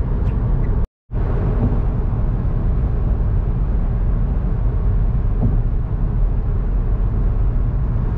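Steady low rumble of a car driving on the road: engine and tyre noise. A split-second dropout to silence comes about a second in.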